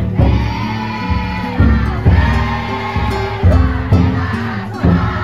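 The futon daiko float's big drum beaten in a steady rhythm, about once a second, under many voices chanting the float's song.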